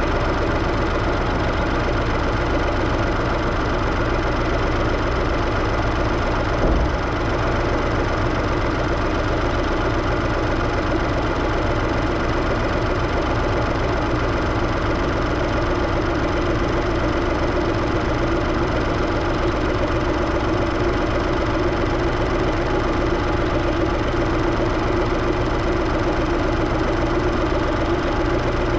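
Supercharged Scion FR-S's 2.0-litre flat-four engine idling steadily, heard in the open engine bay, where it makes a noise that the owner calls weird and cannot place. One brief low thump about 7 seconds in.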